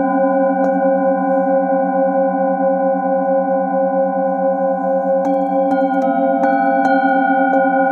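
Metal singing bowls ringing with several sustained tones layered together, the lowest hum wavering in a steady pulse. A handheld bowl is struck lightly with a padded mallet once near the start, then about six quick taps follow in the last few seconds.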